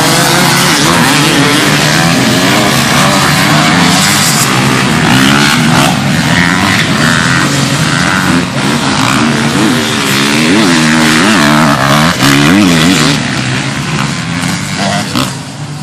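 A pack of dirt bikes and ATVs revving hard and accelerating away from the start of a cross-country race, many engines at once, their pitch rising and falling through the gears. The sound grows fainter near the end as the pack pulls away.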